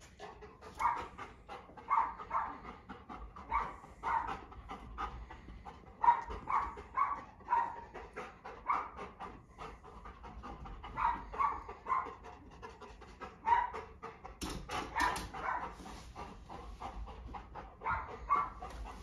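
Golden retriever panting in quick, regular breaths, about two to three a second, while it searches. A louder burst of noise comes about three-quarters of the way through.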